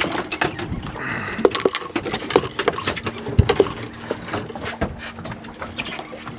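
Fishing reel and rod being worked against a hooked amberjack: irregular clicks, rattles and knocks, a couple of them sharper near the middle, over a steady low hum.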